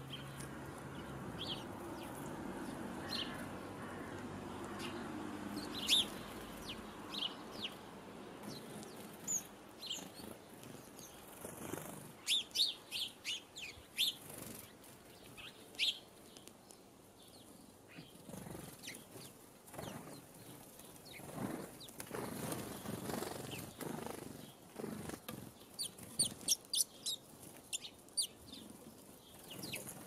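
Blue tits flitting around a hanging fat-ball feeder, wings fluttering as they land and take off, with short high chirps scattered through. The chirps cluster in quick runs about twelve seconds in and again near the end.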